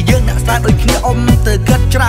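Background music with a steady beat, about three deep drum hits a second.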